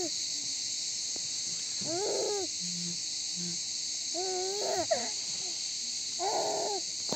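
Cicadas buzzing in a steady, high chorus, with a baby babbling and cooing in short calls about every two seconds.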